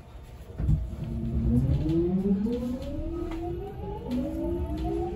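JR West 207 series traction motors and Mitsubishi power-transistor VVVF inverter whining as the train pulls away, heard inside the passenger car. A low thud about half a second in, then a whine that climbs in pitch, jumping up in steps as the inverter changes mode, over a low running rumble.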